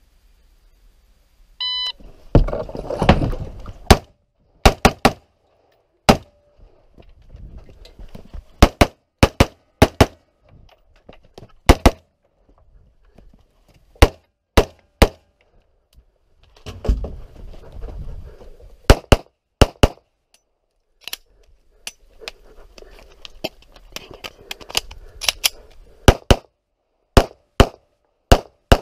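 A shot-timer beep about two seconds in starts a timed 3-gun run. About thirty gunshots follow in irregular clusters, first from an AR-15 rifle and later from a Glock pistol, with rustling movement noise between groups. The run includes a jam.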